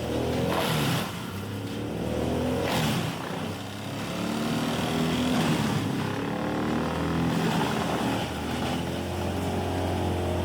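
Bandit 3590XL whole-tree chipper running: its large engine note sags and recovers several times under load as wood is fed in. Short bursts of chipping noise come about half a second in and again near three seconds.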